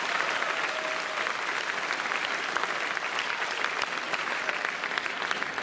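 Spectators in a sports hall applauding steadily as a badminton rally ends, a dense patter of many hands clapping.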